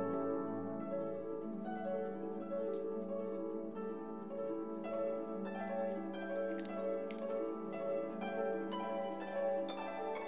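Background instrumental music: a melody of short, changing notes over a held low note.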